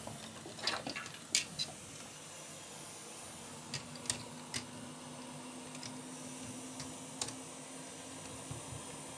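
Scattered light clicks and taps of a laptop's plastic casing and hinge being handled during a hot-glue hinge repair, over a faint steady hiss. A low steady hum comes in about a third of the way in.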